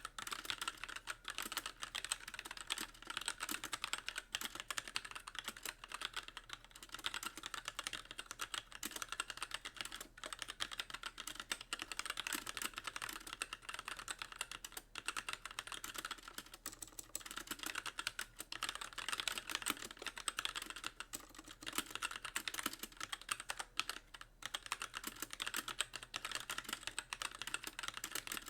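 Fast continuous typing on a mechanical keyboard with very light Gateron Clear linear switches and stock keycaps, the keys bottoming out on nearly every press, with a brief pause about halfway through.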